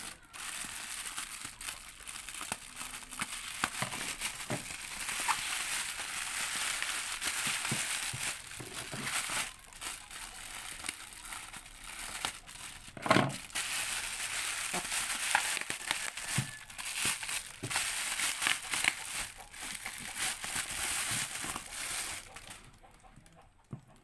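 Plastic bubble wrap crinkling and rustling as it is cut with scissors and pulled off a box, with many small snips and clicks and one sharper snap about halfway through.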